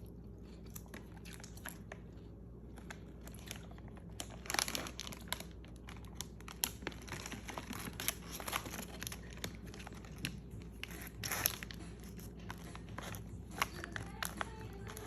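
A chip bag crinkling, with chips crunching, in short irregular bursts. The louder clusters come about four and a half seconds in, around eight to nine seconds, and at about eleven seconds.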